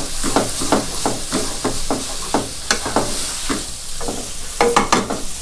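Wooden spatula stirring and tossing rice noodles in a stone-coated nonstick frying pan, a quick run of scrapes and taps about three a second over a light sizzle. The noodles have soaked up the sauce liquid and the pan is almost dry.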